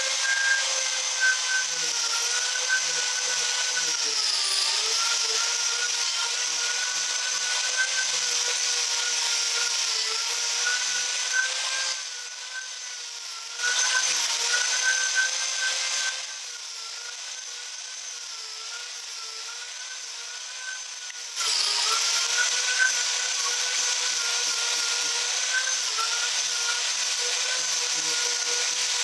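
Angle grinder with a 14-tooth Lancelot chainsaw-chain carving disc roughing out a block of ash: a steady motor whine over the rasp of the chain chewing wood, the pitch sagging briefly each time the disc bites in. Twice around the middle the sound drops quieter for a few seconds.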